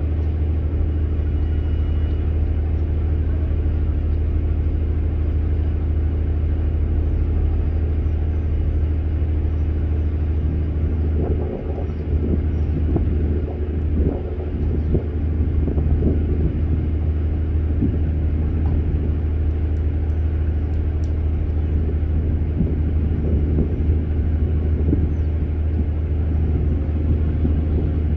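Steady low engine rumble, with fainter irregular sounds over it from about halfway.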